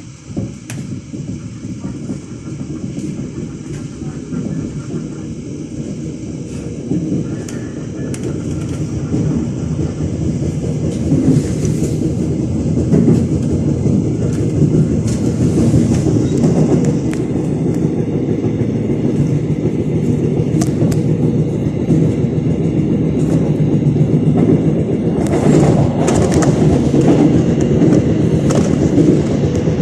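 Gyeongui–Jungang Line electric multiple unit with a Toshiba IGBT traction inverter running on the line, its rumble growing louder over the first ten seconds or so as it picks up speed, then holding steady. Wheels click over rail joints throughout, with a denser cluster of clicks near the end.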